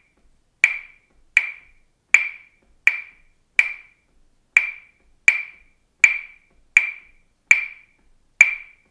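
A pair of wooden claves struck in the 3-2 bossa nova clave pattern: about eleven sharp, ringing clicks of the same pitch, each dying away quickly.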